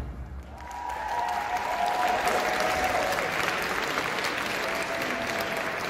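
Audience applauding and cheering as the dance music cuts off. The applause builds within about a second and then holds steady, with a few long, high cheers over it in the first few seconds.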